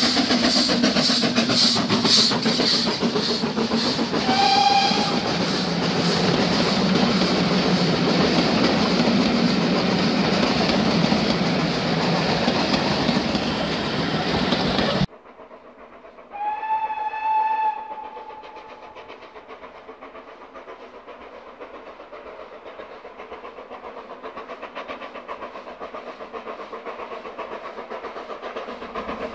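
BR Standard Class 4MT steam locomotive No 75078 running close past with its carriages, with loud regular beats and wheels clattering on the rails, and a short whistle blast about four seconds in. About halfway through, the level drops abruptly, and a steam locomotive whistle sounds once in the distance for just over a second, followed by a faint steady rumble of the approaching train.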